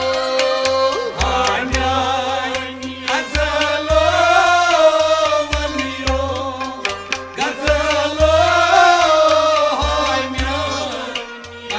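Folk ensemble music: a rubab, harmonium and bowed fiddle playing a winding melody over a regular drum beat.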